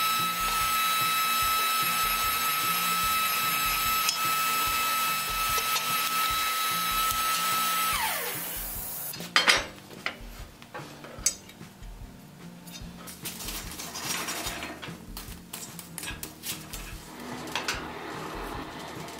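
Electric motor of a metal-bending press running with a steady whine, then switched off about eight seconds in and winding down in pitch. Sharp metallic clanks and knocks follow as steel bar stock is handled, the loudest two near the middle.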